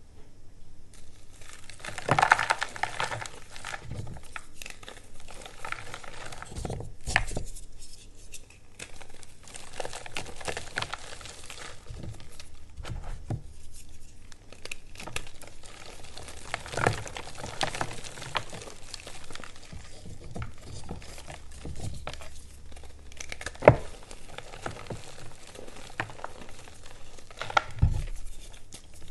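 Moulded pieces of reformed gym chalk being crushed and crumbled by hand: a dry, continuous crunching, starting about a second in, with several sharper cracks as pieces break apart.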